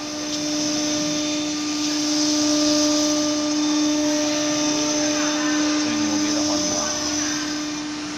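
CNC router spindle running with a steady whine, over a steady hiss of air or dust extraction.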